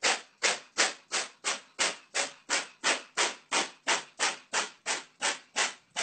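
A cat sneezing over and over in a rapid, evenly spaced run of short noisy bursts, about three a second.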